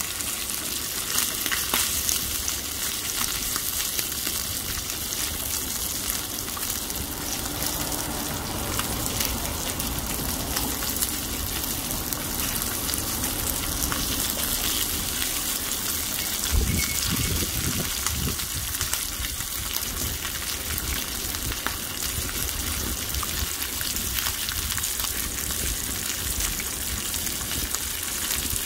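Thick-cut bacon and maitake mushrooms frying in their fat on a cast-iron griddle: a steady sizzling hiss with frequent small crackles and pops. A little past halfway there is one brief louder thump.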